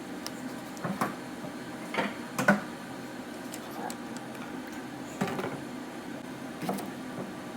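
Kitchen items being handled: a few separate light knocks and clicks at uneven intervals, over a steady low background hum.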